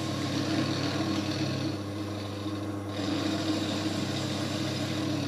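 TAIG micro milling machine running: a steady, light hum from its motor with a rustling sound from the spindle drive. The higher rustle thins for about a second, two to three seconds in, then comes back.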